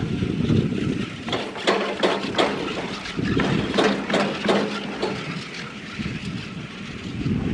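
Ride on a basket chairlift, with wind buffeting the microphone. In the middle there is a run of sharp clacks and rattles over a low hum, as the lift carrier runs through the cable rollers at a tower.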